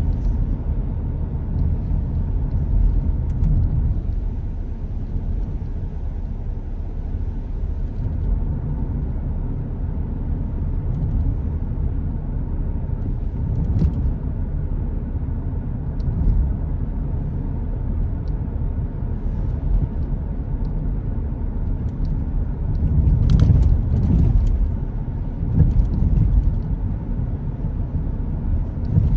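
Car driving on rain-wet roads: a steady low rumble of road and engine noise that swells louder a little past the middle, with a few faint ticks.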